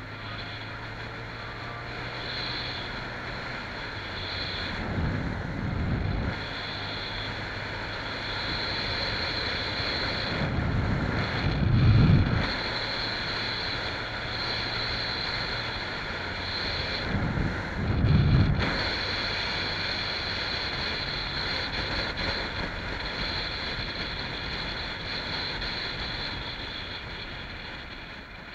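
Wind rushing over the microphone while riding a 2018 Honda Grom, with the bike's running engine and road noise underneath. Three heavier gusts buffet the microphone, the loudest about midway.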